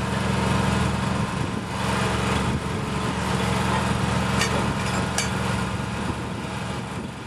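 Engine of track-laying machinery running steadily, with two sharp metallic clinks a little after the midpoint.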